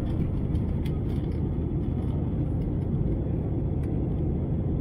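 Airliner cabin noise in an Airbus A321neo: a steady low rumble of engines and airflow heard from a passenger seat, with a few faint clicks.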